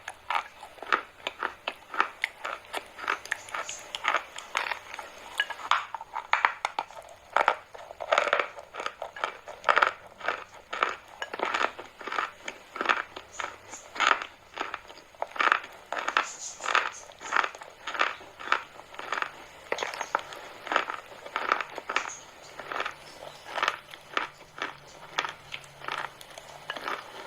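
Chalk crunching close to the microphone in a steady run of short, sharp crunches, about one to two a second.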